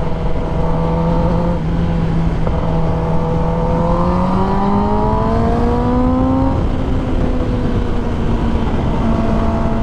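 2021 Kawasaki ZX-10R's inline-four engine running under heavy wind rush. Its note holds steady, then rises smoothly from about four to six and a half seconds in as the bike speeds up, and holds at the higher pitch.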